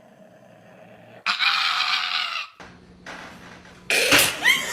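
A pet animal calling twice: a loud call with a wavering pitch about a second in, and another near the end.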